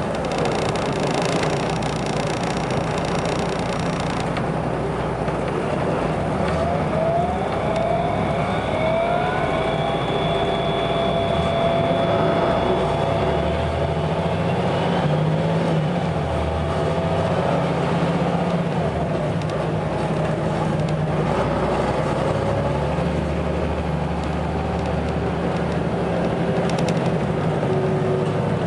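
Volvo B7RLE bus's six-cylinder diesel and ZF automatic gearbox running. The engine note climbs in pitch several times, then holds a steady whine, as the bus pulls through its gears.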